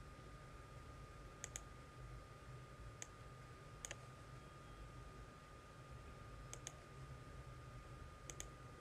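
Faint computer mouse clicks, single and in quick pairs, a handful spread over several seconds, over a faint steady high tone and low hum.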